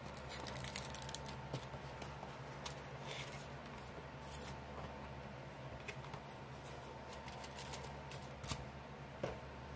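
Light rustling and scattered small clicks of packaging and bottles being handled as items are taken out of a box, over a faint steady hum.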